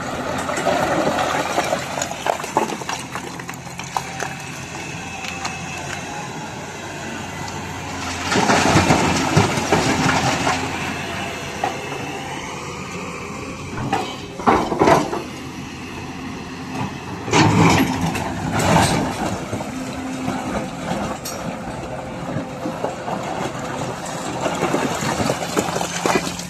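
Hydraulic excavator's diesel engine running steadily under load, with three loud stretches of rock and stone grinding and clattering against the steel bucket, the first about eight seconds in.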